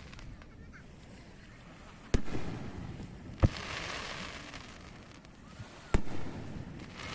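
Fireworks shells bursting over the sea: three sharp booms about two, three and a half and six seconds in, each followed by a rumbling, fading tail.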